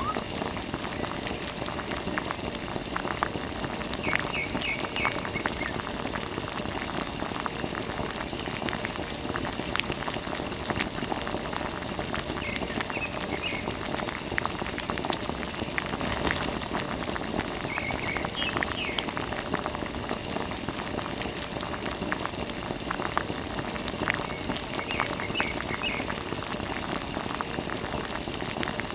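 A thin stream of water pouring from a small tube and splashing onto a mud-covered toy auto-rickshaw and wet sand, a steady spattering trickle.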